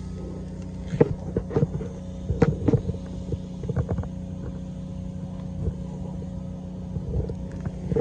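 An engine idling with a steady low hum, with scattered, irregular clicks and knocks over it.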